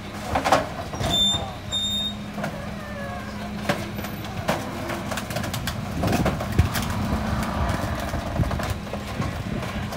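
Rear-loader garbage truck's engine idling with a steady low hum, while several crew members talk nearby and a few sharp knocks sound.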